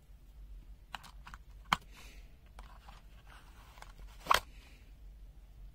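Sharp plastic-and-metal clicks and knocks from a screwdriver and bit set being handled. There are a few light clicks, a sharp one about a second and a half in, and a louder double click a little past four seconds.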